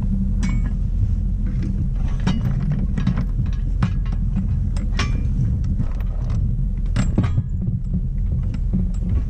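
Anchor chain clinking and rattling in irregular metallic strikes as it is paid out by hand, with no windlass. Under it, the boat's engine idles steadily.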